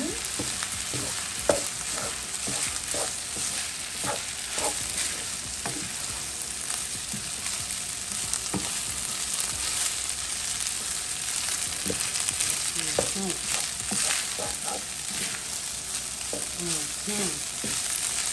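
Rice sizzling as it fries in oil in a hot frying pan, stirred and tossed with a wooden spoon that scrapes and knocks against the pan now and then.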